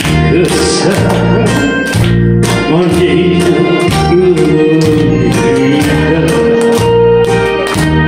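A man singing a Korean song into a microphone over a karaoke backing track with a steady beat of about two drum hits a second. About three seconds in he holds a wavering note.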